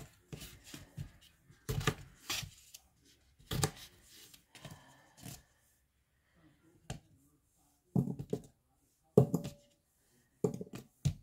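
Kitchen knife cutting through raw red potatoes onto a paper plate on a stone counter: sharp, irregular knocks and clicks of the blade meeting the plate about once a second, with light handling rustle between.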